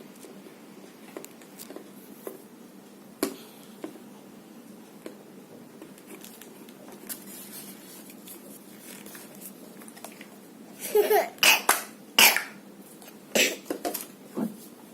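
A child coughing in a run of short loud coughs about eleven seconds in, then a few more near the end. Before that come only faint clicks of small plastic toy parts being twisted and handled.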